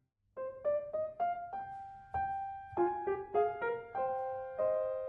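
Background piano music: a slow melody of single struck notes, starting after a brief moment of silence.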